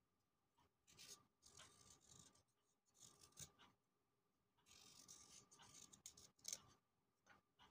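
Small knife blade scraping the skin off a dandelion root: faint, irregular scraping strokes, with a longer stretch of steady scraping about five to six and a half seconds in.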